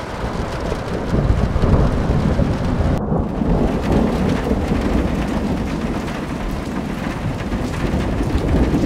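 Steady heavy rain with a deep rumble of thunder, a rain-and-thunderstorm ambience track; the sound swells about a second in and is spliced about three seconds in as one scene cuts to the next.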